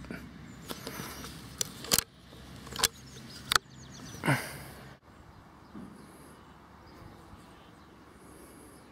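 A few sharp cracks and clicks from a Weihrauch HW100 PCP air rifle being fired and handled, the loudest about two seconds in and at three and a half seconds, followed by a short sound falling in pitch just after four seconds. After an abrupt cut, quiet outdoor background with faint high chirps.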